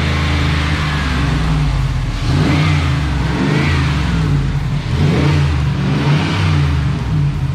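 Ram 1500's 5.7 Hemi V8, on its first start with a newly installed S&B cold air intake, running and revved in about four short throttle blips between idle.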